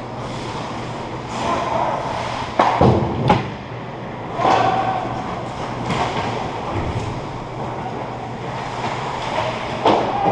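Ice hockey play around the goal: skates scraping the ice, with sharp knocks and thumps from sticks, puck and pads, three in quick succession about three seconds in. A steady low hum runs underneath.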